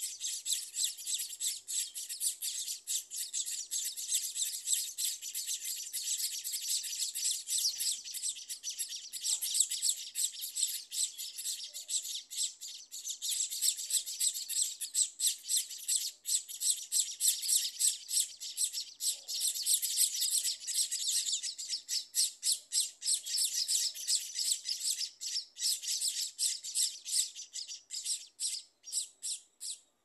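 Scaly-breasted munia nestlings begging: a dense, high-pitched chorus of rapid chirps that thins to separate chirps near the end.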